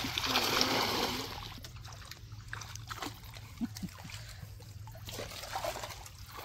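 Water splashing and trickling, loudest in the first second, then smaller splashes and drips.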